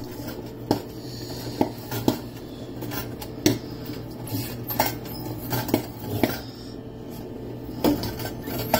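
Popcorn kernels popping in a popcorn machine's heated kettle: sharp, scattered pops about one a second, over the steady low hum of the running machine.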